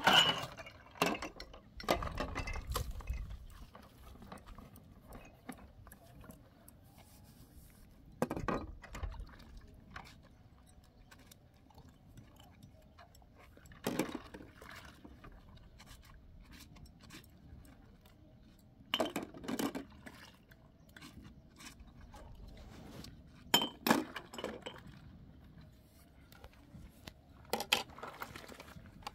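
Dishes, pots and utensils clinking and knocking in short bursts every few seconds, with quiet stretches between.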